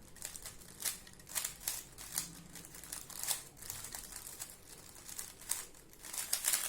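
A plastic Rubik's-type speedcube clacking as its layers are turned fast during a speed solve, an irregular run of sharp clicks.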